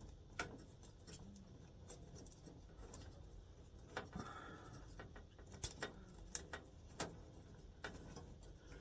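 Faint, scattered clicks and light handling noises as wires are worked at the terminals of a furnace control board, with a small cluster of clicks a little past the middle.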